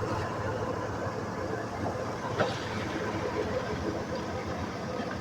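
Hydraulic excavator running steadily, with a single sharp knock about two and a half seconds in.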